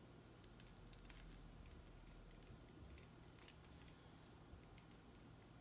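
Near silence: room tone with a few faint, soft ticks of nylon fishing line being handled and knotted by hand.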